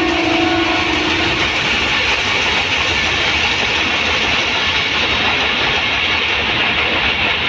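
Passenger train running past on its track, a steady noise of the coaches going by. A train horn's held note sounds at the start and stops about a second and a half in.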